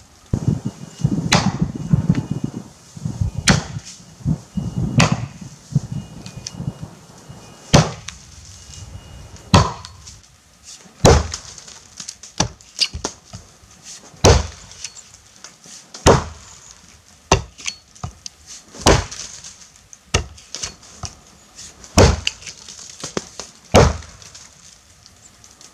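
Helko Werk Tasmanian felling axe chopping into a standing tree trunk: a long series of sharp blows, spaced a second or two apart at first and coming about once a second in the second half.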